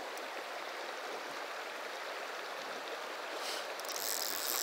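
Steady rushing of river water flowing over a shallow, rocky bed. Near the end a brighter hiss joins in and the sound gets a little louder.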